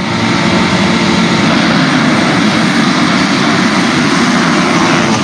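A full field of motocross bikes at high throttle, launching off the start gate together: a loud, dense mass of engine noise with no single bike standing out.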